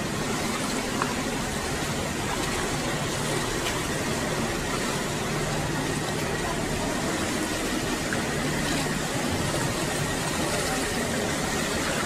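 Boat engine running steadily with a low hum, under a constant hiss of water.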